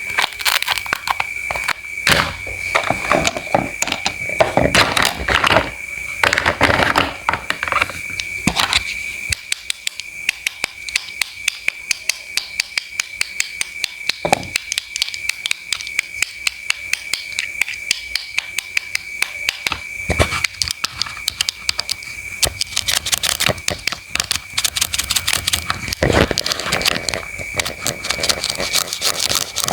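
A knife cutting produce on a cutting board: crunchy cuts and sharp taps of the blade against the board, settling in the middle into quick, fairly even chopping taps about three a second. A faint steady high tone runs underneath.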